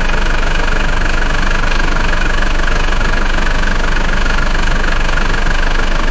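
Diesel engine running steadily at an even speed, with a rapid, regular clatter.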